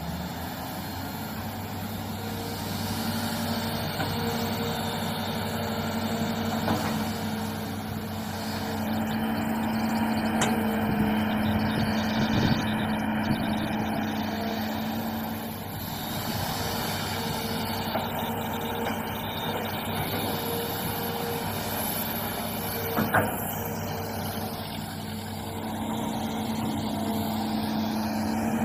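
Hitachi hydraulic excavator's diesel engine running with a steady drone that swells and eases as the boom and bucket work, with a few sharp knocks, the loudest about three-quarters of the way through.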